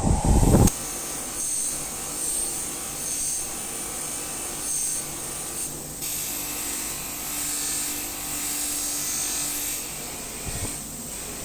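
Metal knife part being worked by hand with an abrasive tool: slow, repeated rubbing strokes, after a loud knock at the start.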